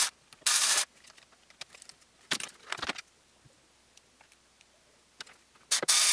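Handheld electric screwdriver driving short screws into 3D-printed plastic parts in brief runs: one run of under half a second about half a second in, and another short one near the end. Small clicks and rattles of screws and plastic pieces being handled come in between.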